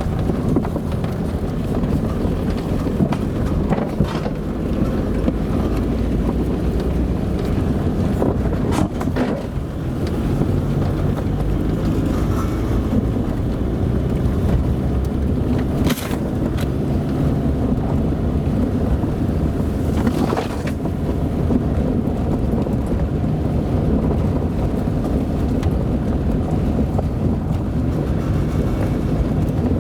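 Car driving on a dirt road: a steady low rumble of engine and tyres, with a few sharp knocks, the clearest about sixteen seconds in.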